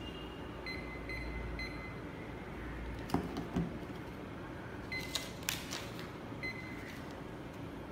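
FM300 fixed-mount QR code scanner giving short high beeps, each one the signal of a successful decode: three in quick succession about a second in, then single beeps later on. A few clicks and knocks come from the codes being handled.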